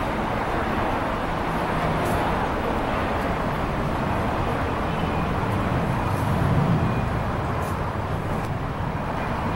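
Wind blowing outdoors: a steady rushing noise with an uneven low rumble of gusts on the microphone.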